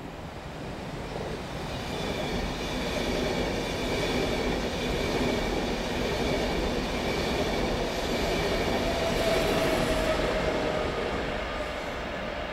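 ÖBB Railjet passenger train with its Taurus electric locomotive passing close by: rumbling wheels and track with steady high tones over it. It grows louder to a peak about ten seconds in, then begins to ease.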